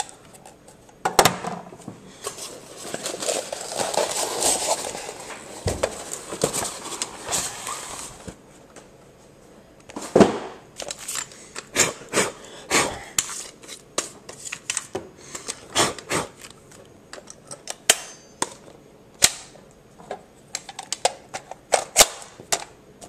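Handling noise from unpacking an airsoft rifle: several seconds of rustling, then an irregular run of sharp clicks and knocks as the rifle and its parts are picked up and set down.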